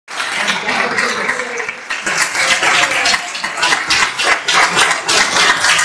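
Audience applauding, a dense patter of many hands clapping that thickens about two seconds in, with crowd voices underneath at the start.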